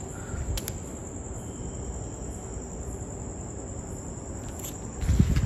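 Crickets chirping in a steady high-pitched trill, with a dull low thump near the end.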